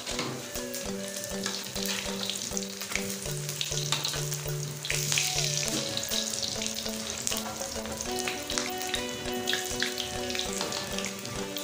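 Besan baray (gram-flour fritters) deep-frying in hot oil in a kadai: a continuous sizzle with many small crackles as they are turned over with a spatula and fork. Background music plays underneath.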